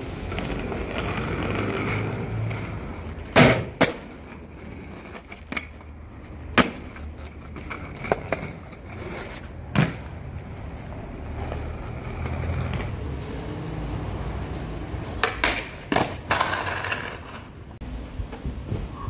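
Hard skate wheels, from a skateboard and aggressive inline skates, rolling with a rumble over rough concrete. Sharp clacks of tricks hitting and landing on concrete ledges come several times, with a quick cluster of them near the end.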